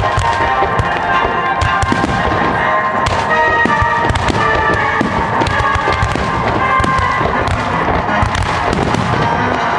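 Fireworks bursting in quick succession, with many sharp bangs and crackles over background music.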